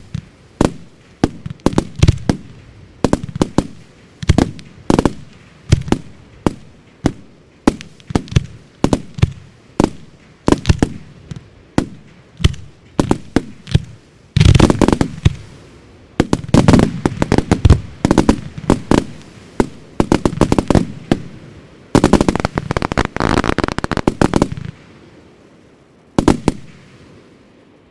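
Fireworks display: aerial shells and single shots bursting one after another, a sharp bang every half second or so. There are two dense barrages of rapid reports, one about halfway through and a longer one about three quarters through. Near the end comes one last bang, and the sound fades out.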